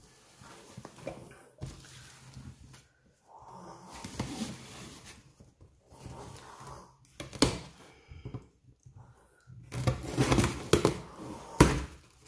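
Cardboard subscription box being opened and handled by hand: irregular scraping and rustling of cardboard, broken by sharp knocks and thumps, the loudest near the end.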